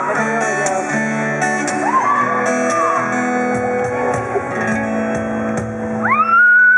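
Live band music with guitar strummed over held instrument tones. Near the end a voice slides up into a long high held note.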